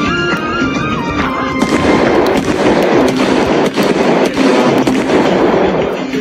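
Background film music, then from about two seconds in a long, dense run of rapid bangs and crackle, a gunfire sound effect, laid over the music.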